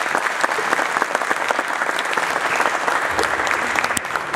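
Audience applauding, many hands clapping steadily and beginning to die down near the end.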